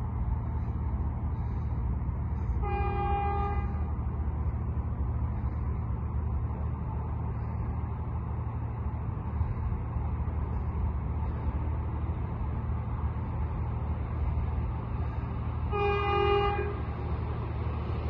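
EP2D electric multiple unit sounding its horn twice, two separate blasts of about a second each, over a steady low rumble as it approaches.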